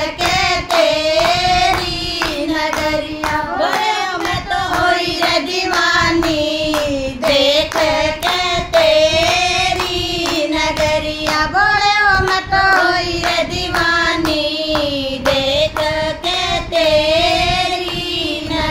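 A group of women singing a Hindi devotional bhajan together, accompanied by steady, rhythmic hand-clapping in time with the song.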